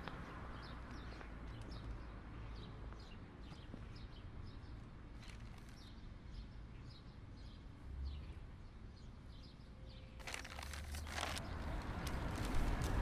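Quiet outdoor ambience: faint bird chirps over a low rumble, with a short noisy burst about ten seconds in and traffic noise rising near the end.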